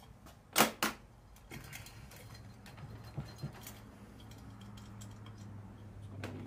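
Small metal clicks and light ticks of the governor arm and its linkage being worked loose by hand on a Predator 212 engine: two sharp clicks about half a second in, then scattered lighter ticks, over a faint low hum.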